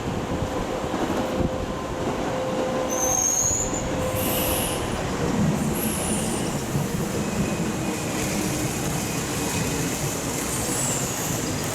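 Kintetsu limited express electric train, a 22000 series ACE coupled to a 12200 series Snack Car, pulling out of the station with a steady rolling rumble of wheels on rail. Several brief high-pitched wheel squeals come about three to five seconds in, and a fainter one near the end.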